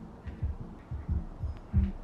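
Background music fading in: a deep, steady kick-drum beat that grows louder, with a little sustained low tone between the thumps.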